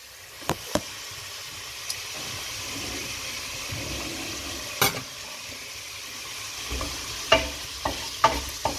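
Food sizzling in a frying pan on a gas stove, with a sharp clack about five seconds in. From about seven seconds in a wooden spatula stirs the pan in a run of clicks and scrapes.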